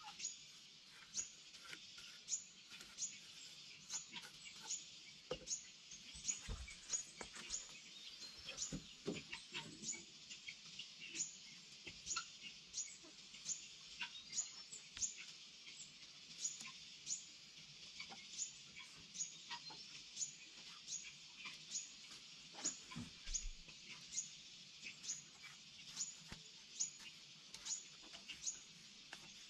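Forest ambience: a steady high insect hiss, with a short, sharp high chirp repeating evenly almost twice a second. A few soft low thuds come in the middle and near the end.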